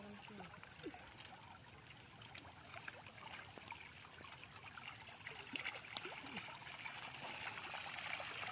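Water trickling and dripping off a large bamboo-framed lift net as it is hauled up out of the water, with small fish flipping and splashing in the net's bag. The sound grows gradually louder toward the end.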